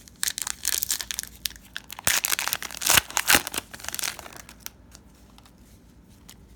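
The plastic wrapper of a trading card pack being torn open and crinkled, with dense crackling that peaks with a few sharp snaps about two to three and a half seconds in and dies away after about four and a half seconds.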